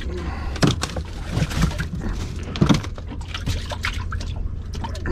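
Water splashing and dripping with scattered knocks and clatters on a small boat, as small baitfish are picked up out of the water.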